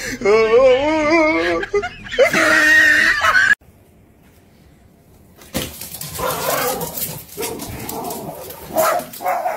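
In the first three seconds there is a wavering, voice-like sound, then a loud harsh squawk, both ending abruptly. After about two seconds of near silence, rain hisses steadily through an open door, and small terriers whimper.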